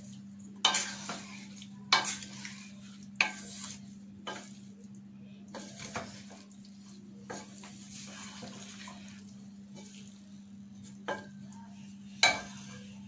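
Wooden spatula stirring and scraping chicken, onions and tomatoes around a stainless steel pot, in irregular strokes about once a second, the loudest near the start and near the end. Underneath, the mixture sizzles over the raised flame, with a steady low hum.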